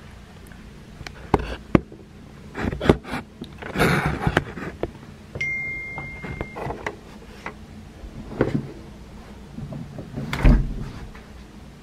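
Handling noise as a camera is propped up and things are moved about: a run of clicks, knocks and rustles, with a short steady high tone about halfway through and a heavy thump near the end.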